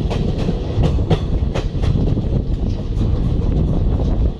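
Moving Indian Railways passenger coach heard from its window: a steady low rumble of wheels on track, with sharp clicks at uneven intervals, a few a second, as the wheels cross rail joints.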